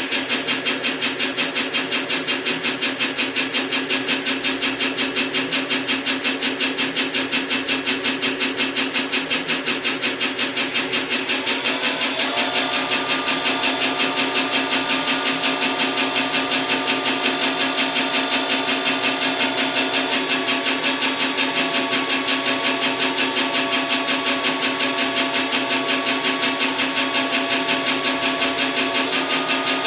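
Mikron F75 milling machine running, with the table's DC-motor power feed driving it slowly: a steady machine hum with a fast, even pulse. About twelve seconds in a higher steady tone joins. That tone shifts in pitch about twenty seconds in and again near the end.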